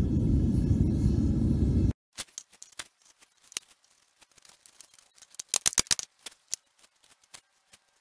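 Propane burner firing a homemade furnace, a steady low rumble that cuts off suddenly about two seconds in. Then hands working damp casting sand in a wooden mould frame: scattered crunching and small clicks, busiest about five and a half seconds in.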